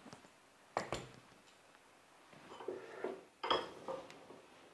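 Small steel parts of an angle-grinder gearbox clicking and clinking as they are fitted by hand. There are two sharp clicks about a second in, then a cluster of light metallic taps and clicks a little past the middle.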